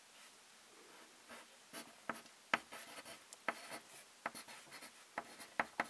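Small wax crayon being written with on paper: faint, irregular scratchy strokes and light taps, starting about a second in.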